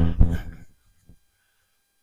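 A man's voice speaking briefly and fading out within the first second, then a faint click, then dead silence.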